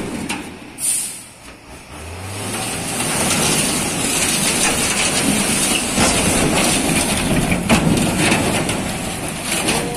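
Heavy diesel truck engine running hard under load, its sound building about two seconds in and staying loud, with a steady high hiss over it.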